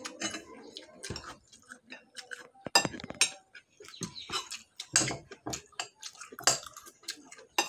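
Spoons clinking and scraping against plates during a meal, in short irregular clinks.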